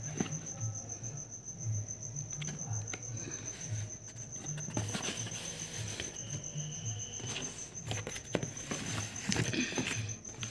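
Cardboard shoe boxes and stiff baby shoes being handled, with scattered rustles, scrapes and light knocks, under a steady high-pitched pulsing trill.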